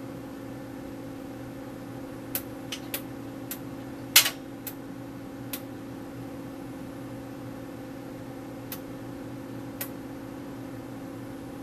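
Intoxilyzer 5000 breath-alcohol instrument running with a steady hum. Over it come about nine sharp clicks at uneven intervals, the loudest a double click about four seconds in: the DIP switches on the side of the instrument being flipped to reset its date.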